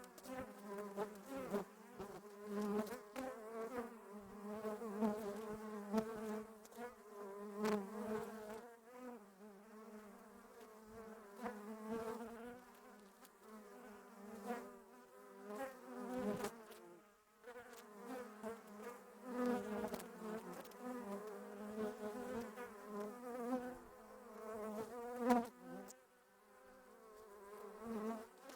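Bees buzzing: several wing buzzes overlapping, each wavering in pitch and loudness as they fly close and away, with a short lull about two-thirds of the way through.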